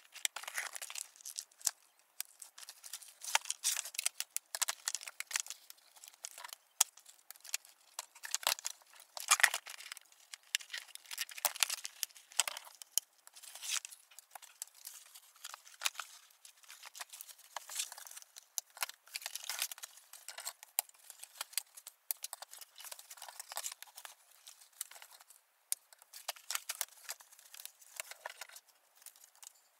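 Cardboard and plastic doll-box packaging being handled and pulled apart by hand. Irregular crinkling and rustling with short clicks and occasional scissor snips.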